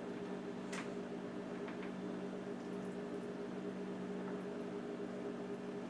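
A steady low electrical hum with a few fixed tones, with a short light tap about a second in and fainter ones soon after as strips of raw goose meat are handled on a metal baking sheet.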